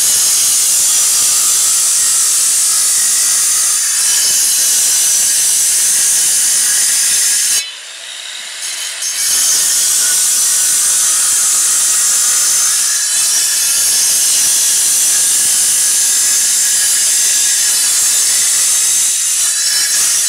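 Handheld angle grinder cutting score lines into a concrete block: a loud, steady, high-pitched grinding whine. It breaks off briefly a little over a third of the way through, then resumes and stops at the very end.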